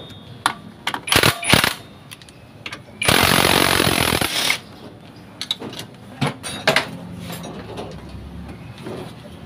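A cordless impact wrench hammers a bolt tight for about a second and a half, starting about three seconds in. Shorter bursts come about a second in, and scattered clicks and knocks follow.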